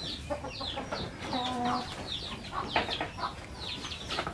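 Chickens clucking in the shed, with a run of short, high, falling peeping chirps repeating every few tenths of a second and one brief deeper pitched call about a second and a half in.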